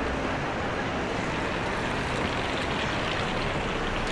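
Steady rain falling in a city street: an even hiss with a low rumble underneath.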